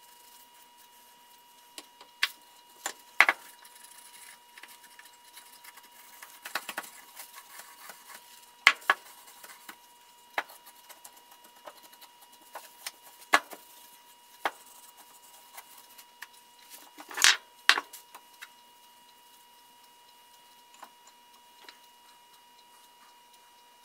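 Scattered clicks and knocks as a wooden plane body and bottles are handled and set down on a workbench, the loudest a cluster about 17 seconds in, over a faint steady high tone.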